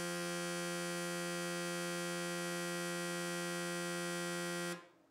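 Steady, buzzing electrically driven tone, rich in overtones, from the vibration driver shaking a strand of cooked spaghetti at an audible frequency to set up surface waves on the water. It cuts off abruptly near the end.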